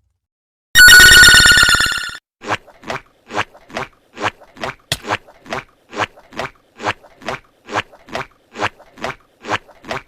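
Meme sound effects: a loud, bright ringing tone lasting about a second and a half, followed by a steady series of short sharp beats, about two and a half a second.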